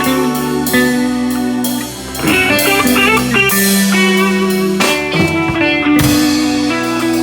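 A band playing an instrumental passage: guitar notes over a drum kit, with no singing.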